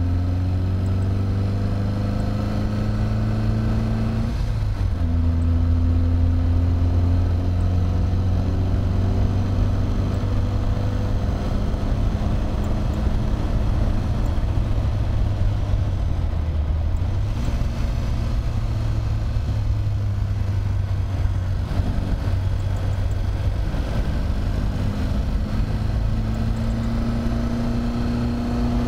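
Triumph TR3A's four-cylinder engine pulling hard at track speed. The pitch dips and recovers briefly about four seconds in and again past the halfway point, as at gear changes, and climbs near the end.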